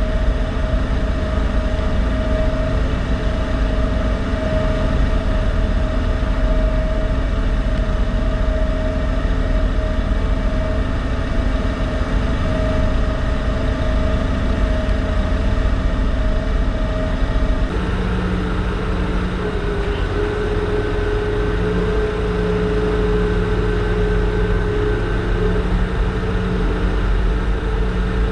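A ferry's engines and machinery drone steadily, a deep rumble with humming tones over it. About two-thirds of the way through, the engine note changes and the humming tones shift to new pitches.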